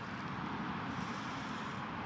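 Steady, even background noise with no distinct sounds in it.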